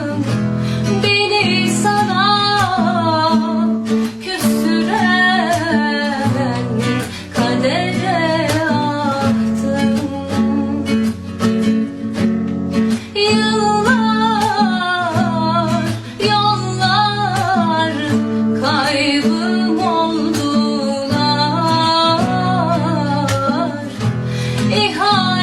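A woman singing a slow song in phrases with a pause between them, over guitar accompaniment.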